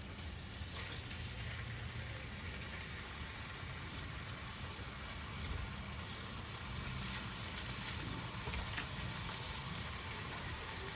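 Bacon strips sizzling steadily on a hot gas griddle, an even crackling hiss, with a low steady rumble underneath.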